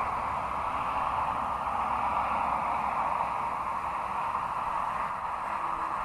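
Steady, even hiss that does not change, with no distinct event in it.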